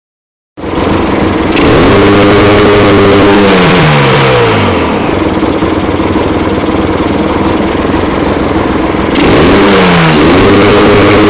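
Vehicle engine revved and let fall back to idle: it climbs about a second and a half in, holds, drops back to idle over the next couple of seconds, then revs up again near the end. The engine is one the owner says is misfiring.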